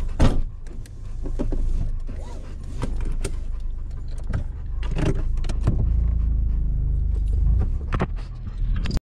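Low steady rumble of a car heard inside the cabin, with a sharp knock just after the start and scattered clicks, knocks and jingling as several dogs shift about on the seats with their collars on.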